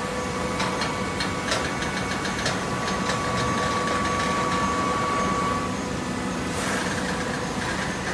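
Hydraulic cardboard baler running: a steady mechanical hum with a steady whine that stops a little before six seconds in. A run of clicks comes in the first three seconds, and a short hiss about six and a half seconds in.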